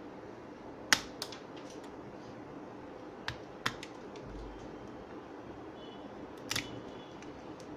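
A few sharp clicks and taps of small hard parts being handled, the loudest about a second in and a double click near the end, over a steady low hiss.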